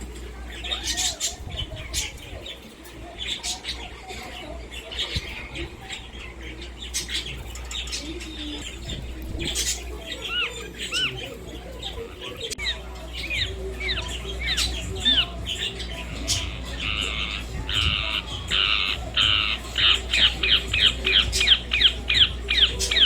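Indian ringneck parakeet calling: scattered sharp calls at first, then a run of short arched chirps, and from about two-thirds of the way through a fast series of loud, harsh squawks, two or three a second.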